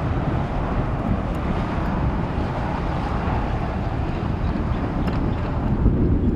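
Jet engine noise from an Airbus A330-243F freighter's Rolls-Royce Trent 700 engines: a steady rush that swells slightly in the middle and eases toward the end. Wind rumbles on the microphone underneath it.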